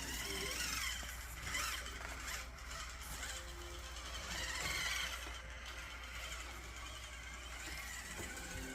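Electric drive motor and gearing of an RC rock crawler whining, the pitch rising and falling several times as the throttle is worked.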